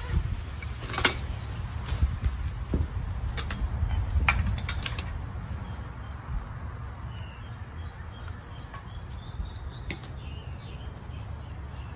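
Rustling of a nylon paddle board bag and a handful of sharp clacks as paddle sections are pulled out and set down, loudest in the first half, over a steady low rumble. Faint bird chirps come in the second half.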